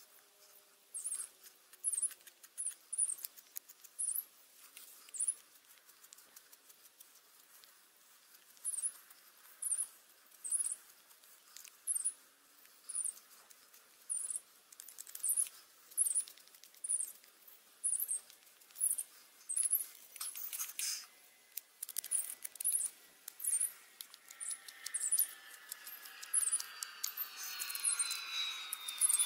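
A small knife carving a wooden spoon: short scraping cuts into the wood, roughly one a second, as the blade hollows out the bowl. Near the end a falling whine joins in.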